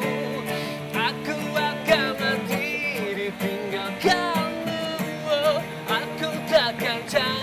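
Pop band music with guitar carrying a melody over sustained backing chords.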